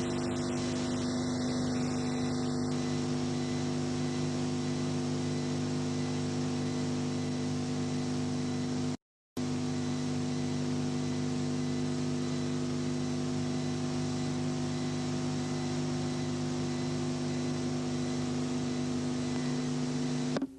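Steady electrical hum with a buzz of evenly spaced overtones. It cuts out completely for a split second about nine seconds in.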